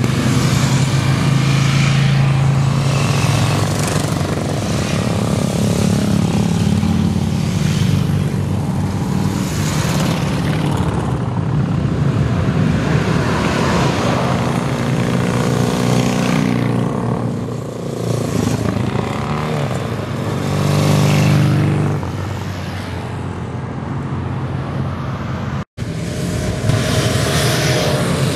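A procession of motorcycles riding past one after another, each engine rising and fading as it goes by, with a car passing among them. The sound drops out for an instant near the end.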